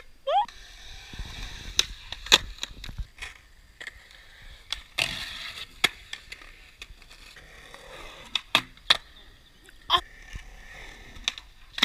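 Skateboard on a concrete skatepark: wheels rolling with a low rumble, and a scatter of sharp clacks as the board's tail and wheels strike the concrete. A short rising whistle sounds at the very start.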